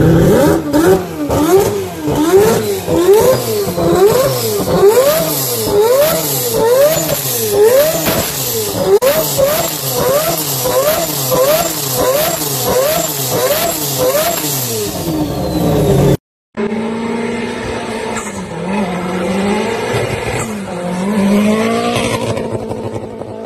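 Turbocharged engine of a Mazda RX-7 revved by hand at the throttle, its pitch jumping up and dropping back over and over, about one and a half times a second and quicker near the end. After a sudden cut, a drifting car's engine rises and falls more slowly as it slides along the road.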